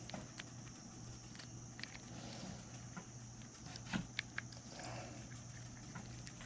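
Faint scattered clicks and taps of fishing reel parts being handled during reassembly, the loudest pair about four seconds in, over a steady low hum.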